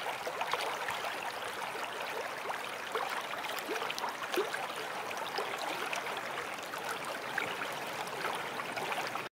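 Steady running water with small gurgles and bubbling ticks, like a babbling stream.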